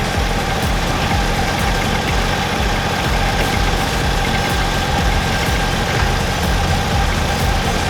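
Case skid steer's diesel engine running steadily.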